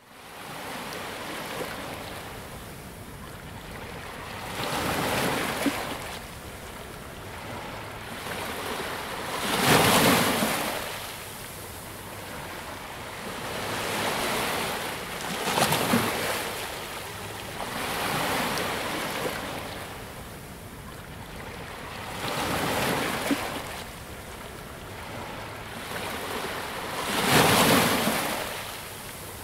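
Ocean waves breaking on a beach, each wave rising and fading about every five seconds over a steady hiss of surf. The loudest waves come about a third of the way in and near the end.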